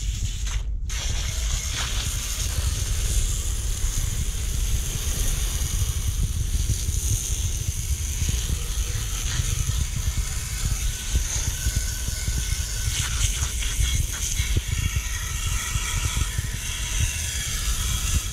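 Garden hose spray nozzle jetting water onto a metal bicycle frame, rinsing off paint stripper and loosened paint: a steady hiss of spray and spatter, with a low rumble underneath.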